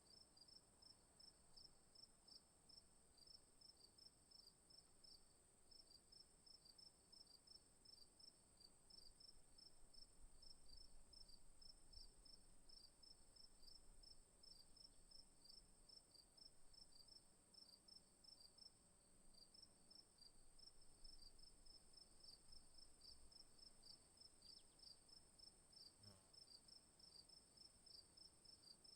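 Crickets chirping faintly: one continuous high trill over a rapid, regular chirping at about four chirps a second.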